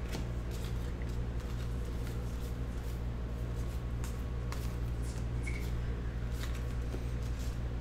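Trading cards being slid and flipped one by one in the hands, making faint light clicks and rustles, over a steady low hum.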